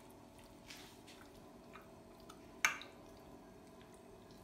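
Raw marinated chicken pieces being mixed in a glass dish: faint wet squishing, with one sharp click about two and a half seconds in.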